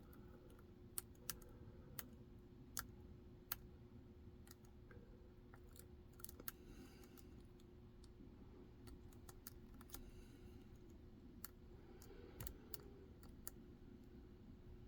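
Faint, irregular metallic clicks and ticks of a lock pick working the pins of a Medeco six-pin KIK cylinder under tension, one or two small clicks a second with quiet between.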